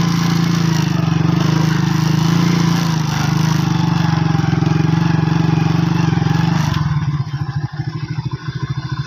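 Motorcycle engine running steadily while riding, with a rushing hiss over it. About seven seconds in the hiss drops away and the engine falls to a slower, uneven putter as the bike slows.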